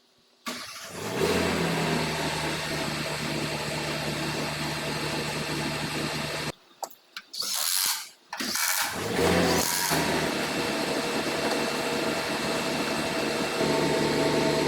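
Diesel engine of a SEM 652D wheel loader coming in about half a second in and running steadily. The sound breaks off for a few seconds in the middle with a few clicks and rushes, then the engine is running again, a little louder near the end.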